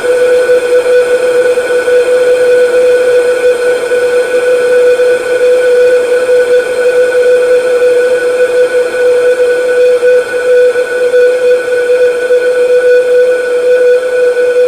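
Samsung phone notification sound, time-stretched into a continuous drone: one steady held tone with fainter higher overtones, wavering rapidly in loudness with a grainy texture.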